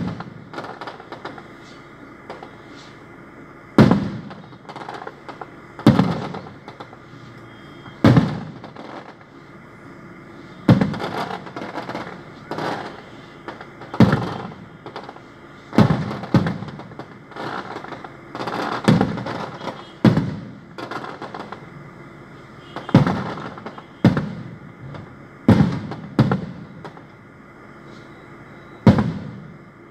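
Aerial fireworks bursting overhead: a sharp bang every one to three seconds, each one fading out with an echo, and smaller pops in between.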